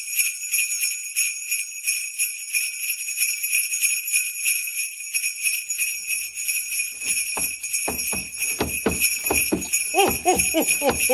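Sleigh bells jingling steadily and rapidly. Low heavy thuds join about seven seconds in and repeat irregularly, standing for hooves or footsteps landing on a roof.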